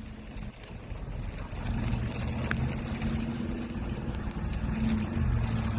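Wind rumbling on the microphone during a severe storm, with a low hum that comes up about two seconds in.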